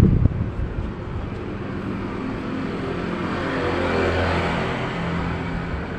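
A motor vehicle passing by on the street, its engine and tyre noise swelling to a peak about four seconds in and then easing off. Wind buffets the microphone at the start.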